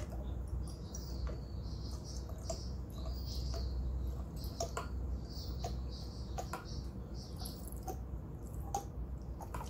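Witch hazel trickling from an upturned flip-top bottle into a small glass spray bottle: a faint, irregular high-pitched trickle with scattered small clicks, over a steady low hum.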